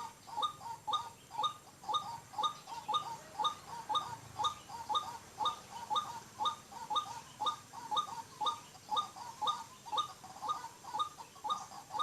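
White-breasted waterhen calls: a short, two-part note repeated steadily, about twice a second, with no break.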